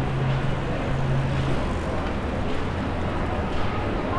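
City street ambience with a vehicle engine running at low revs, a steady low hum, and indistinct voices of passers-by.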